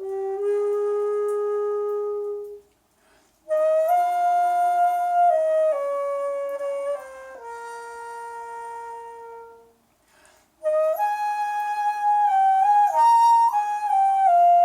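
Jeongak daegeum, a Korean bamboo transverse flute, played solo without accompaniment: a slow melody of long held notes stepping between pitches. It plays in three phrases, broken by short breath pauses about two and a half seconds and ten seconds in.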